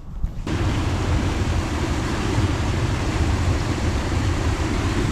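Wind buffeting the microphone: a loud, rough rumble that sets in suddenly about half a second in and keeps on steadily, heaviest in the low end.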